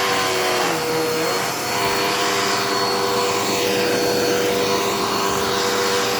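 Dirt Devil Endura Reach vacuum running steadily, a constant motor whine over a rush of air, its pitch wavering briefly about a second in.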